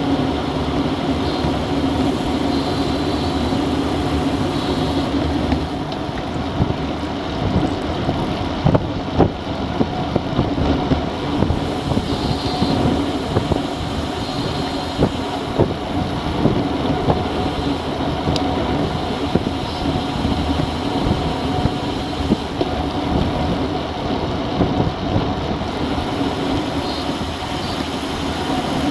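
Wind rushing over an action camera's microphone on a road bike riding at about 45 km/h, mixed with tyre and road rumble. Short knocks from bumps in the road come now and then, most often between about six and eleven seconds in.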